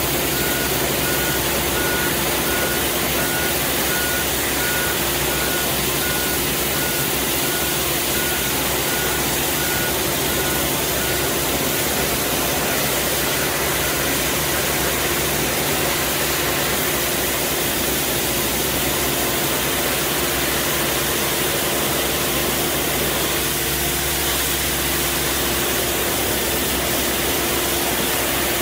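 Compact street sweeper working: its engine runs steadily while the rotating side brush scrubs along the kerb and grass with a constant hiss. A rapid, evenly repeated warning beep sounds through the first half and stops about halfway.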